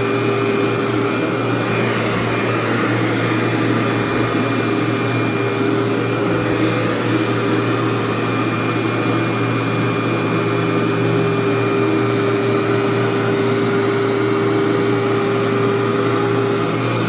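Workhorse vacuum running steadily on carpet: a constant motor drone with a steady hum that does not change.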